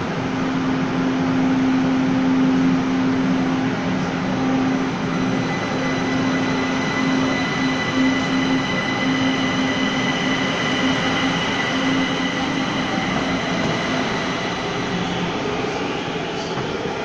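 Three-car Kaohsiung MRT Red Line train pulling out of an underground station and into the tunnel: a steady rumble of wheels and running gear, with a low hum and a high whine. It grows slightly quieter near the end as the train moves away.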